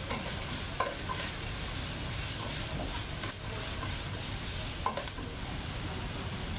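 Diced onion, celery, carrot and leek sizzling gently in oil in a non-stick pot, sweating down over medium heat, stirred with a plastic spoon, with a few soft clicks of the spoon.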